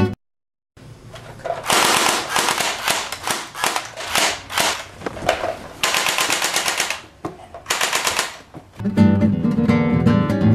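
Several bursts of rapid automatic gunfire follow one another over about seven seconds. Acoustic guitar music comes back near the end.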